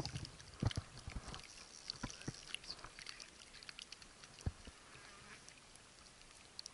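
Small waves lapping against a rocky lakeshore: faint, irregular small splashes and knocks over a quiet background.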